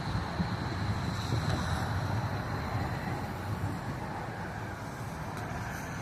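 Steady low rumble of vehicle engines, with no distinct events.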